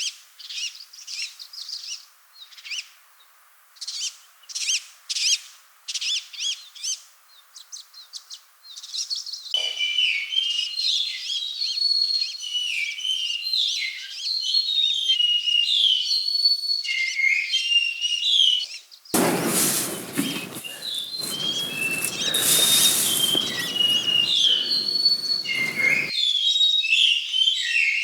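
Small birds calling: first a series of short, high chirps, then from about ten seconds in a dense chorus of sliding, whistled notes. Roughly two-thirds of the way through, a loud rushing noise covers the song for about seven seconds and then stops suddenly.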